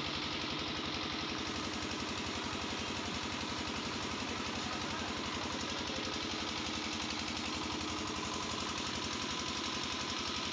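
An engine idling steadily, with a rapid, even pulsing beat.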